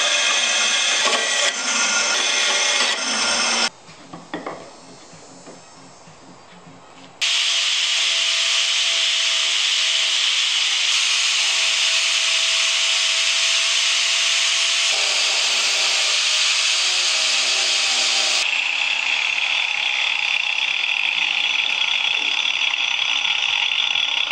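Bandsaw cutting through walnut for the first few seconds, then a few seconds much quieter. From about seven seconds in, an angle grinder runs steadily against the walnut, power-carving a spoon.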